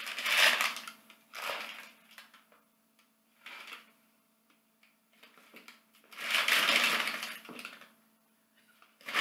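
Crumpled newspaper-type packing paper rustling and crinkling in bursts as a ceramic piece is unwrapped by hand: a burst at the start, another about a second and a half in, a brief one near the middle and a longer one about six seconds in.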